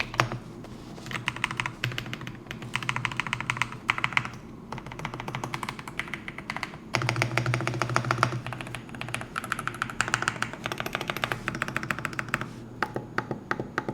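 Typing on a newly built custom mechanical keyboard: quick runs of key clacks lasting a second or two, broken by short pauses.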